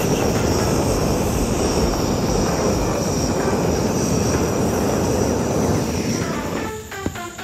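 A steady, loud rushing noise, typical of a gas burner flame heating the metal ball, which dies away about six and a half seconds in. Music with a bell-like jingle begins near the end.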